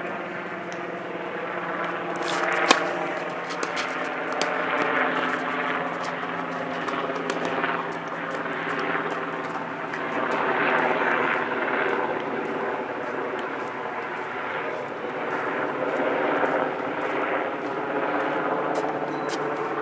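A steady engine drone of several layered tones, with sharp tennis racket-on-ball hits over it, the loudest about three seconds in.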